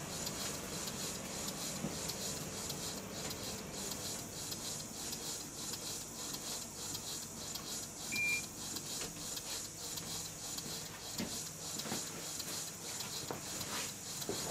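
Stuart beam engine model running on compressed air, a steady, soft mechanical running with light repeating clicks. A short high tone sounds once a little past the middle.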